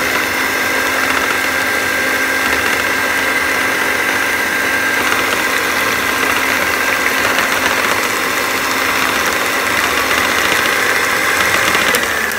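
Electric stand mixer's motor running at a steady high speed with a constant whine, its beaters whipping a runny egg-and-sugar batter. The whine falls away at the very end as the mixer is switched off.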